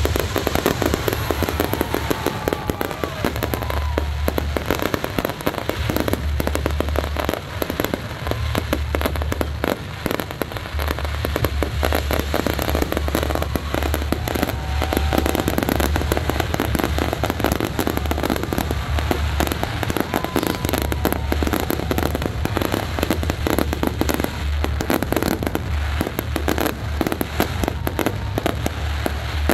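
Fireworks going off in a dense, continuous barrage of rapid crackling and popping.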